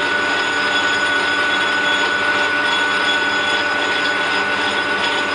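Metalworking lathe running at steady speed, its three-jaw chuck spinning: an even mechanical running sound with a constant high tone.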